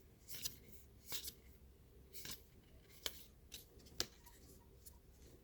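Faint, irregular light clicks and rustles of baseball trading cards being handled, shuffled and set down.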